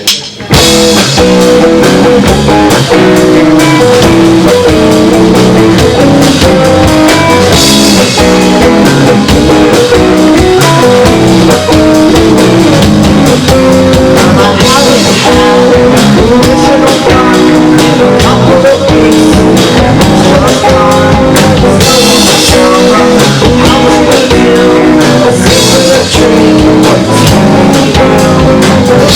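Live rock trio of electric guitar, bass guitar and drum kit playing loudly, the full band coming in about half a second in.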